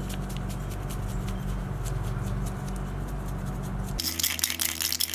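A small motor runs with a steady low hum and light clicking. About four seconds in, it gives way to a hissing, crackling sound.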